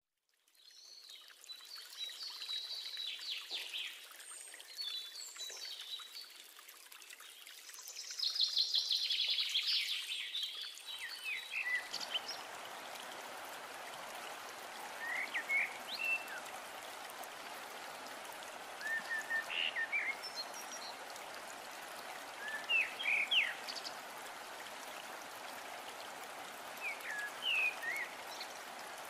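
Birds chirping in quick high twitters; about twelve seconds in, a steady rush of running water starts, with short bird calls every few seconds over it.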